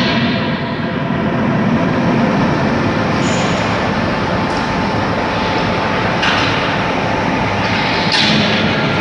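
Steady, loud mechanical rumble of forging-shop machinery around a fully hydraulic die forging hammer, with a few light clanks.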